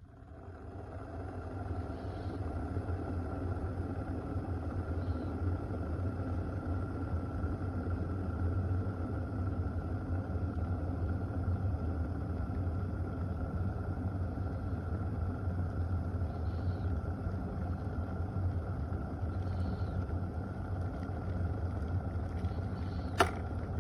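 Chefman glass electric kettle heating water to a rolling boil: a steady rumble that builds over the first two seconds and then holds, with a single sharp click near the end.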